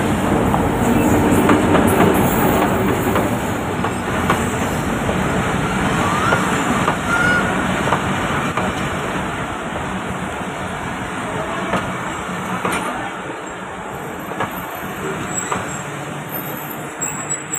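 A Pakistan Railways GMCU-15 diesel-electric locomotive runs in close by, its engine loudest in the first few seconds. Its passenger coaches then roll past, the wheels clacking over the rail joints with a short squeal about seven seconds in. The noise eases off as the train slows for its stop.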